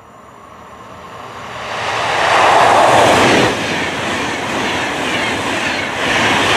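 Intercity train pushed by a Deutsche Bahn Class 101 electric locomotive, passing at speed: wheel-and-rail rumble and rushing air build from far off into a loud pass-by, with some clickety-clack from the coaches. The sound swells again near the end as the locomotive at the rear goes by.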